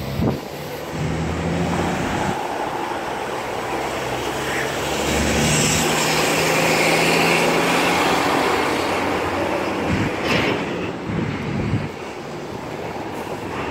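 Traffic crossing a steel truss bridge, a steady noisy hum from the tyres and the bridge, building to its loudest about five to eight seconds in and easing off after.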